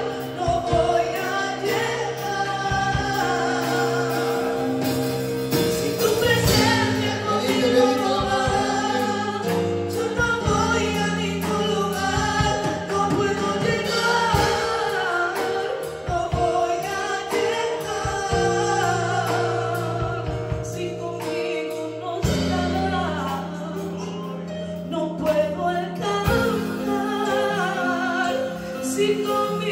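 Two women singing a gospel worship song into microphones over held keyboard-like chords and a steady bass line, amplified through a PA.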